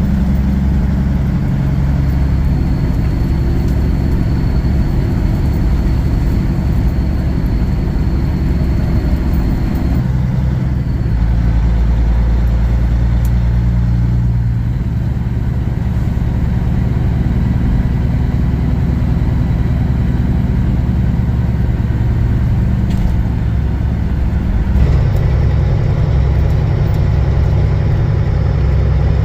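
Kenworth W900 semi truck's diesel engine running steadily under road and tyre noise. The engine's pitch shifts abruptly about ten seconds in and again near the end.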